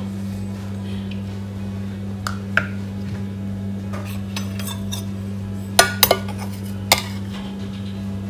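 A metal spoon clinking and scraping in a pan as cumin seeds and whole cardamom are dry-roasted without oil, with a few sharp clinks, most of them about six seconds in. A steady low hum runs underneath.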